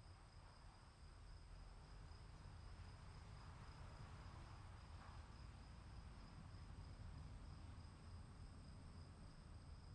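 Faint, steady chirring of insects, two high unbroken tones, over a soft low rumble in the background of a storm ambience.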